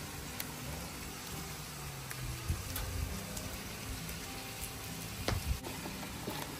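Chicken pieces frying in a hot pan with oil, a steady sizzle. About five seconds in, metal tongs clink against a steel tray.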